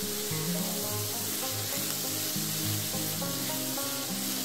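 Chopped onion frying in oil in a nonstick frying pan: a steady sizzle as it is stirred with a silicone spoon. Background music with changing notes plays over it.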